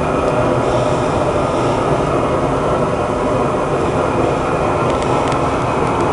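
Propane burner of a gas-fired raku kiln, running with a steady, loud rushing roar.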